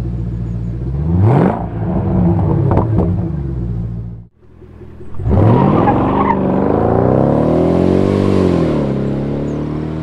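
Jaguar XK8 V8 engine revving: a quick rev about a second in, then after a brief break the car pulling away, its engine note rising and falling as it accelerates past and fading near the end.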